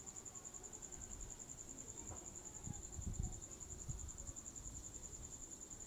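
A cricket trilling steadily in a high, rapid pulsing. Faint rustling and soft bumps of cloth being handled come about two to three and a half seconds in.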